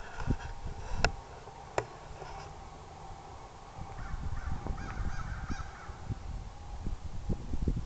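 Wind rumbling on the microphone, with two sharp clicks about a second in and harsh bird calls from a large bird between about four and six seconds in.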